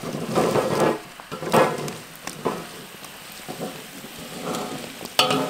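Water boiling hard in a wok with blocks of instant noodles in it, a bubbling hiss with irregular louder bursts, the sharpest near the end.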